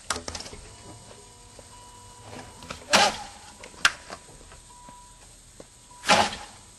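A few sharp knocks and thumps around a parked car, the loudest about three seconds in and again near the end, with a faint steady tone between them.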